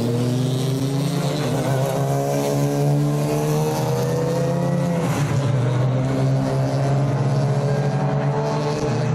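Race car engine accelerating, its pitch climbing steadily, dropping at a gear change about five seconds in, then climbing again.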